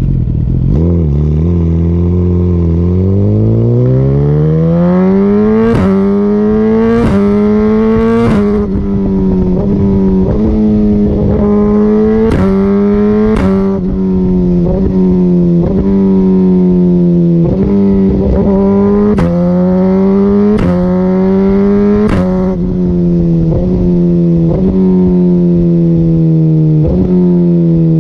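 Suzuki GSX-R1000R inline-four with an Akrapovic Evolution full exhaust, accelerating hard through the gears. The revs climb, and each quick-shifter upshift is marked by a sharp pop, about eight in all. Near the end the revs fall away as it slows.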